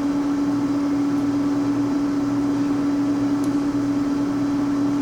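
LeBlond Regal Servo-Shift engine lathe running with the carriage power feed engaged: a steady, unchanging machine hum with one strong droning tone.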